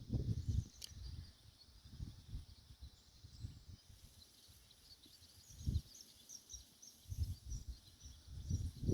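Gusts of wind buffeting the microphone in irregular low rumbles, heaviest at the start and near the end. A faint series of short, high bird chirps runs in the middle.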